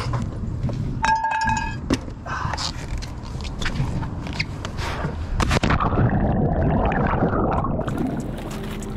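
Camping gear being handled and set down on a rock, with repeated knocks and scrapes and a short squeak about a second in. Near the end, a zipper rasps as the hard-shell knife case is unzipped.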